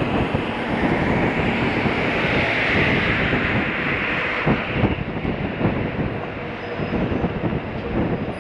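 Steady rumble and hiss of a moving city tour bus and the traffic around it. The noise swells over the first few seconds, then eases, with a few knocks around the middle.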